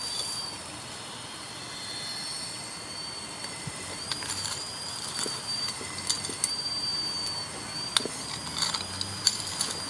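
Electric drive motors of a 1:16-scale RC Komatsu PW180 model excavator whining in short high-pitched runs that start and stop as the turret slews and the arm moves. From about halfway on, gravel clicks and rattles as the bucket works the stones.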